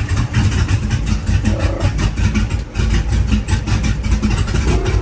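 Cammed, LS-swapped G-body Monte Carlo SS's V8 idling with a choppy, uneven beat, running on freshly installed header gaskets and spark plugs.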